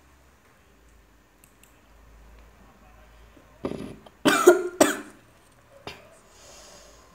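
Three short coughs a little past the middle, the second the loudest.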